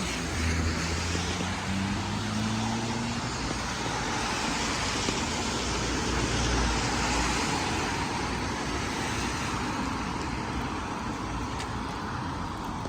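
Road traffic on a wet street in the rain: a steady hiss of tyres and rain, with a vehicle engine rumbling low in the first few seconds.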